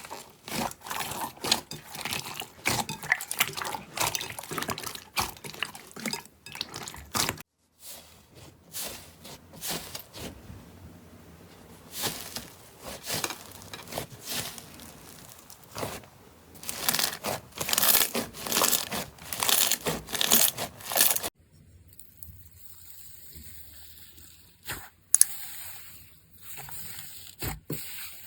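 Slime being squeezed and pressed by hand, giving rapid sticky crackles and pops that come in separate clips with cuts between them. After about 21 seconds the crackling gives way to a quieter handling sound with only a few isolated clicks.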